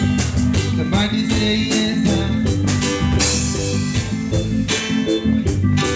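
Live reggae band playing: bass, guitar and drum kit in a steady groove between the singer's lines.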